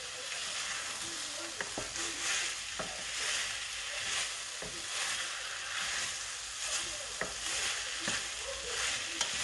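Chicken pieces and vegetables frying in a stainless-steel pan, stirred with a wooden spatula: a steady sizzle that swells with each stroke, with a few light knocks of the spatula against the pan.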